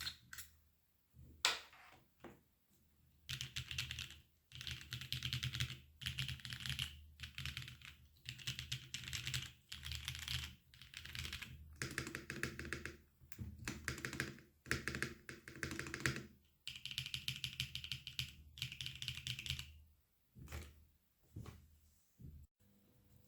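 Mechanical keyboard being typed on: a Neo65 with an aluminium plate and no foam, Loopy linear switches and GJTK keycaps, giving clacky keystrokes. A few single presses come first, then fast continuous typing runs for about sixteen seconds, with a few last presses near the end.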